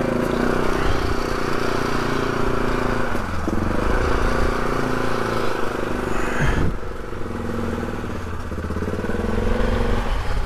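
Polaris off-road vehicle's engine running under load, its revs shifting a couple of times, easing off a little after about six and a half seconds.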